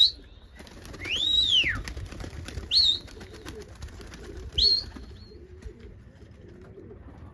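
A person whistling: one long whistle that rises and falls, then two short upward whistles, with pigeons cooing softly underneath.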